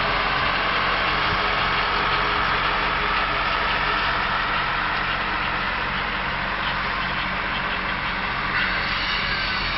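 Old tractor engine running steadily at low speed, towing a loaded spreader trailer that is scattering sand across a grass pitch. A low even hum lies under a constant hiss.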